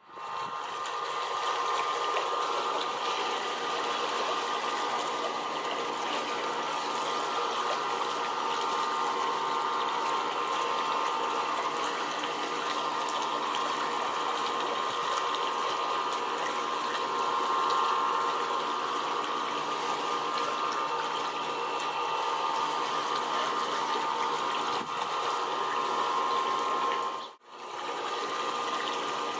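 Steady rush of running water with a steady hum, cut off briefly about 27 seconds in.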